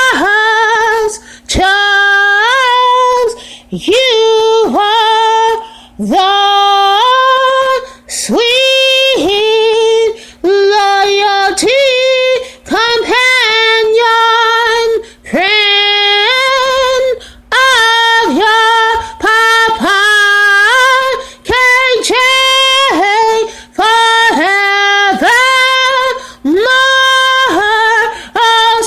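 A woman singing a cappella: a slow, simple melody in short held notes, each phrase about a second or two long with brief breaths between.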